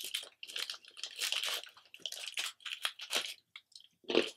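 Small plastic snack packet crinkling and rustling in the hands as it is opened and a piece is taken out, in quick irregular crackles, with one heavier crackle near the end.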